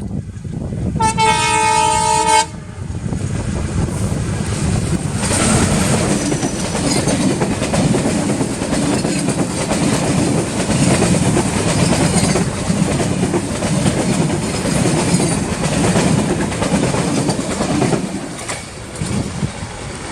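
Drutajan Express passenger train: the locomotive's horn sounds once for about a second and a half near the start. Then the train runs through the station with a loud rush of wheel and coach noise and clickety-clack over the rail joints, which falls away near the end.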